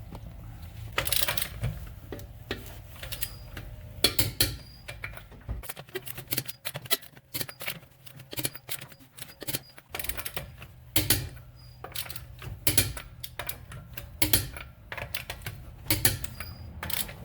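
Irregular sharp clicks and knocks of hand tools and metal parts being worked.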